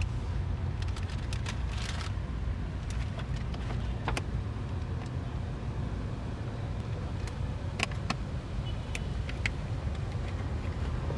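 Scattered sharp plastic clicks and taps from handling the cabin air filter and its housing behind the glove box, a few separate clicks over a steady low rumble.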